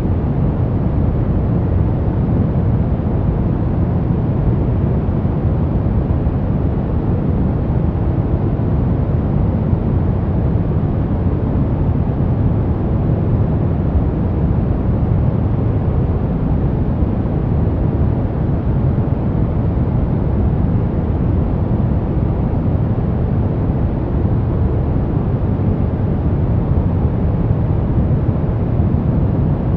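Continuous electronically generated noise of the kind sold as white noise, steady and unchanging, with most of its energy in the low end so that it sounds deep rather than hissy.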